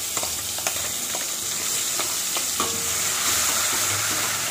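Onion, ginger and garlic paste frying in hot oil with cumin seeds in a steel kadhai, sizzling steadily, while a steel spoon stirring it clicks and scrapes against the pan now and then.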